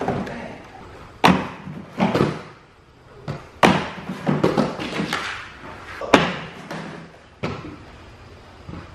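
Aggressive inline skates hitting and sliding along the coping of a wooden grind box during royale grind attempts: about six loud knocks from landings, each followed by a brief scraping slide, with a longer grinding scrape a few seconds in.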